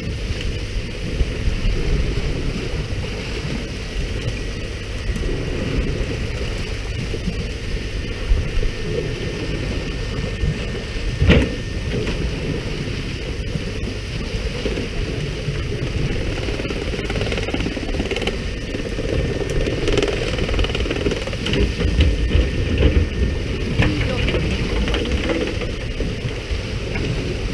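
Steady noise of a pole-and-line fishing boat at sea: the boat's engine running, water spray from the hull sprinklers hissing onto the sea, and wind on the microphone. A sharp knock stands out about eleven seconds in.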